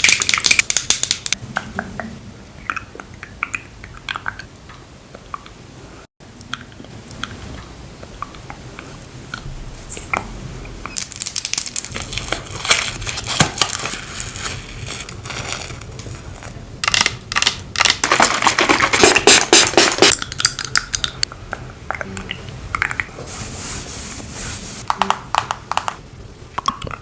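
Makeup products handled close to the microphone: scattered taps and clicks, with longer stretches of crackly scratching and crunching, loudest about two-thirds of the way through.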